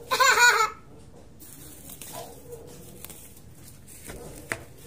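A short, loud, high-pitched wavering cry about half a second long at the start. After it come soft scrapes and a few light ticks of weeds being pulled by hand from dry soil, with a small hand hoe in the other hand.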